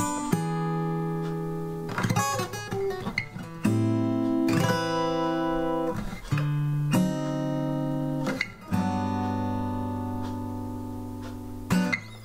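Fender DG60CE acoustic guitar with Ernie Ball Earthwood bronze alloy extra light (10–50) strings, played unplugged. It is a slow run of strummed chords, each struck and left to ring for a second or two before the next change. The stereo recording carries a little added reverb.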